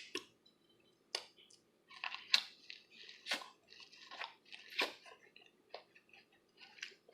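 Close-miked chewing and biting on corn on the cob: irregular wet mouth smacks and small crunches, a few each second.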